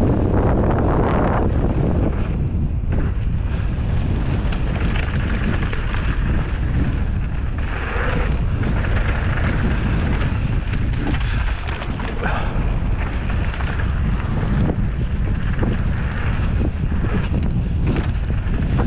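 Wind buffeting the microphone on a fast mountain-bike descent, over the steady rolling of knobby tyres on a dirt trail, with scattered small knocks and rattles from the bike over bumps.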